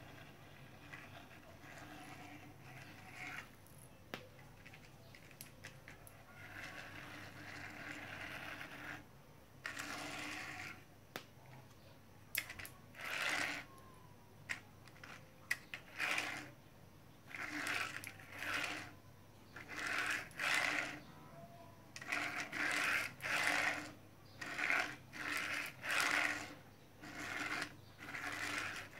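Plastic toy tricycle being worked by hand, its mechanism clicking and rattling. The sound is faint at first, then comes in short bursts about once a second through the second half.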